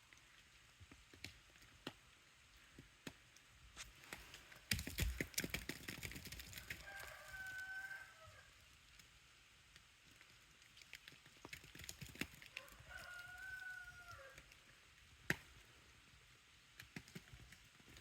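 A rooster crowing faintly twice, each crow a drawn-out call of about a second and a half, about seven and thirteen seconds in. Scattered faint clicks throughout, with a denser run of clicks and a low thump about five seconds in.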